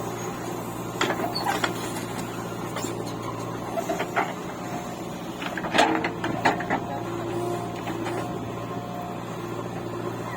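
Machinery engine running with a steady low drone, with scattered knocks and clanks, the loudest about six seconds in.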